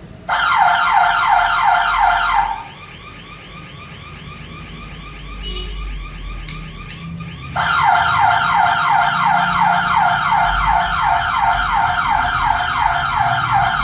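Alarm system's electronic siren sounding in rapid repeated sweeps, about three a second, set off by the panic button. It cuts out after about two seconds, then starts again about five seconds later and keeps sounding.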